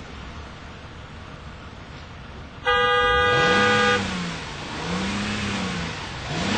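Car horn honking once, a loud held blast of about a second and a half starting a little over two and a half seconds in. After it, a low engine-like drone rises and falls in pitch two or three times.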